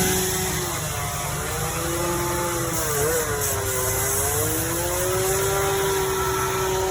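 Chainsaw running, its pitch rising and falling as the throttle is eased on and off while carving, over a steady low rumble.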